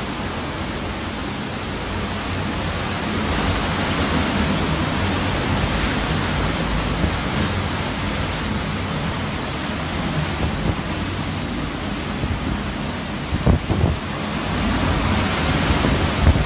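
Hurricane wind and driving rain rushing steadily, with gusts swelling and easing. A few low thumps come about two thirds of the way through and again near the end.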